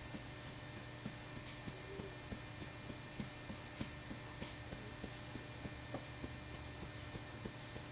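A hand patting a baby's back to bring up a burp: soft, even thumps about three a second, over a low steady hum.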